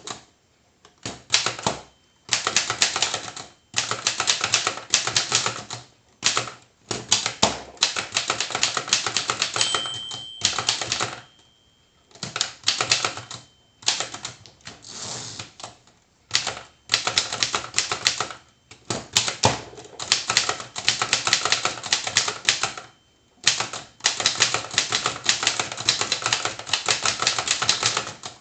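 A circa 1918 Erika folding typewriter with a three-bank keyboard, recently adjusted and serviced, being typed on. Runs of rapid key and typebar strikes are broken by short pauses, with a brief ringing tone about ten seconds in.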